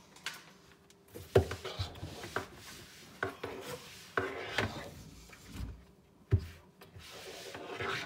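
Handling noises under a kitchen sink: irregular knocks, bumps and rubbing as a gloved hand works the garbage disposal's power cord around the unit. The disposal itself is not running.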